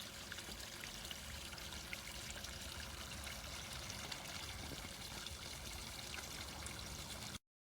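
Water pouring steadily from an Intex LED pool waterfall fountain and splashing into the pool, with many small drips and splashes; it cuts off suddenly near the end.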